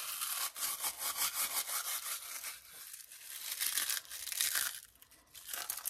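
Ruffles ridged potato chips being crushed and crumbled between the hands, a dry crackling that comes in irregular spurts, with a short lull about five seconds in.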